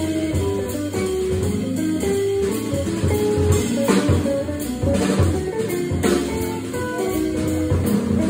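A jazz trio of electric guitar, organ and drum kit playing an instrumental tune, with a single-note melodic line over sustained low organ notes and steady drumming.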